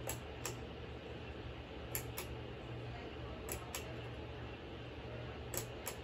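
A FASCO Parlourfan ceiling fan's motor hums steadily with a slow pulse. Over the top, a pull-chain switch clicks four times, each time as a quick double click while the chain is pulled and let go.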